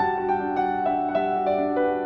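Background music: a gentle piano melody of single notes, about three or four a second, stepping downward over held lower notes.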